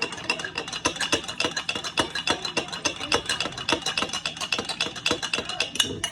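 A spoon stirring quickly in a dish, a fast, continuous run of clinks against its sides, several a second.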